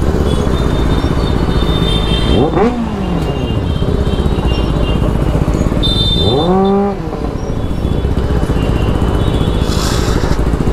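Sport motorcycle engines running in slow, stop-start street traffic. The throttle is blipped so the pitch rises and falls sharply, about two and a half seconds in and again around six to seven seconds in.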